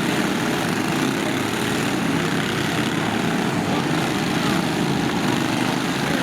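Small lawn tractor engines running steadily at a constant drone.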